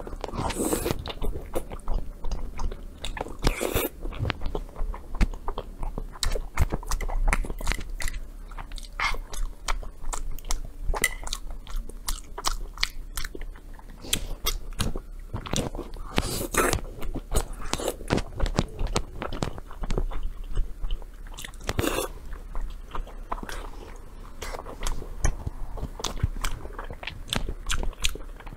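Close-miked eating of red-braised fatty pork belly: wet chewing, lip smacks and biting sounds in quick, irregular clicks and smacks.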